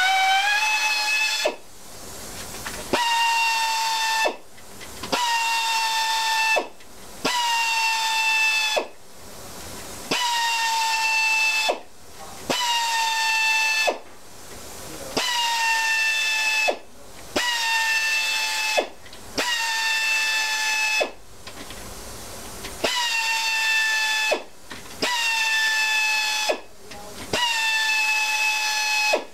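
Handheld pneumatic air tool whining in more than a dozen short bursts of a second or two each as it spins out the pre-loosened cylinder head screws of an Evinrude/Johnson 60° V-6 outboard. The whine dips slightly as each burst starts, then holds steady until the trigger is released.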